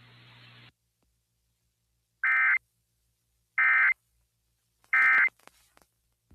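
Emergency Alert System end-of-message code: three short bursts of buzzy digital data tones, a little over a second apart. They signal that the alert message is over.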